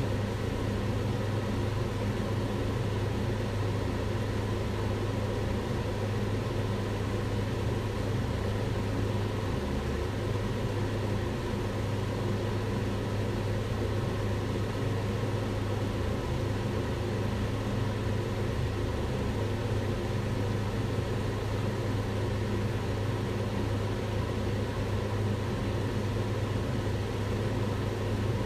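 Kitchen extractor hood fan running steadily: an even whooshing hum with a strong low drone and a few faint steady tones above it.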